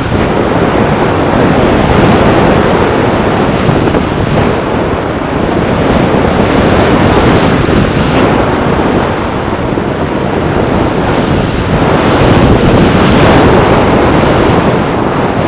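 Wind rushing over the microphone of a camera on a paraglider in flight: a loud, continuous buffeting roar that swells and eases every few seconds.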